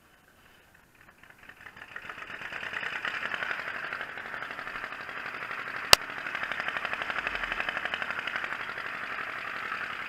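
Massey Ferguson 35X tractor engine running. It builds up over the first few seconds, then settles into a steady, rapid, even beat. A single sharp click comes about halfway through.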